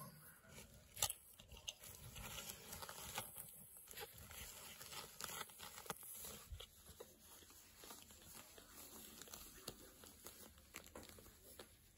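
Faint rustling and crinkling of a disposable puppy pad as newborn puppies shift and a hand moves among them, with scattered small clicks and taps, the sharpest about a second in.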